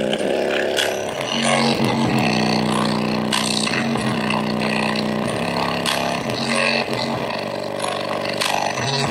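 JBL Charge 4 portable Bluetooth speaker with its driver running in free air, playing a heavily bass-boosted electronic track loud, with repeated sliding bass notes. The uploader says the speaker is almost dead.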